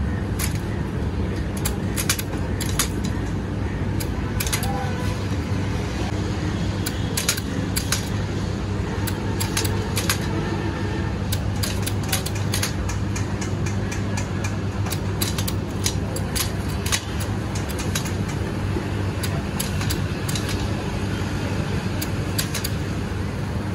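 A hand-lever potato fry cutter clacking as potatoes are pressed through its metal blade grid. The sharp metallic clicks come irregularly, some in quick runs, over a steady low hum.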